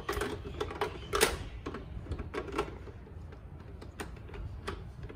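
Hard plastic clicks and knocks of a Bruder toy garbage truck's rear bin lifter and a toy wheelie bin being fitted together and worked by hand: a quick, uneven run of clicks, then two single clicks near the end.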